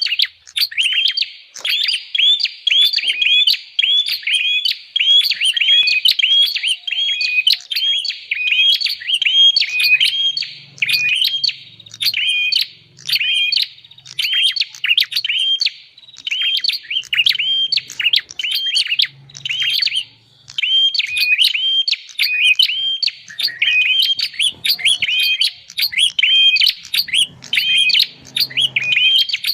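Prinia (prenjak) calling: a fast, unbroken series of sharp repeated chirps, two or three a second. It is a bird-trapping lure call meant to draw in wild prinias.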